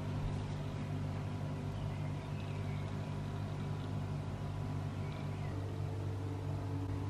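Steady low mechanical hum of a running machine or fan, unchanging throughout.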